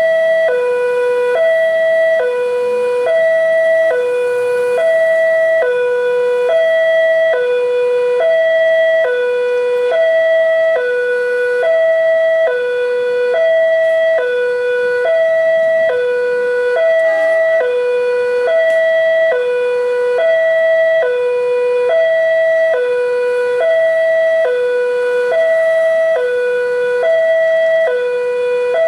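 Railway level-crossing warning alarm sounding: a loud electronic two-tone chime, a higher and a lower note alternating steadily, about one high-low pair every 1.6 seconds. It signals that a train is approaching the crossing.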